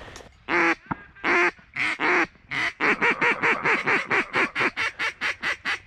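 Duck call blown by a hunter to bring ducks in: a few long, raspy quacks, then a fast run of short quacks at about five a second.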